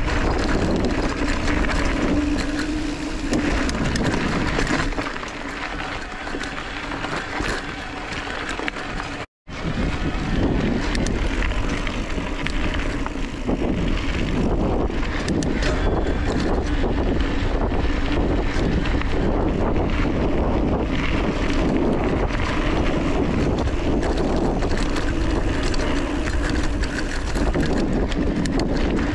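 Mountain bike riding along a dirt and gravel track: tyres rolling and crunching over the ground with small clicks and rattles, and wind noise on the microphone. The sound cuts out for a moment about nine seconds in.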